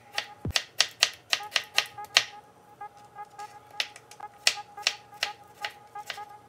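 Chef's knife slicing a tomato on a wooden cutting board: a run of sharp chops of the blade on the board, about three a second, pausing briefly midway. Faint background music underneath.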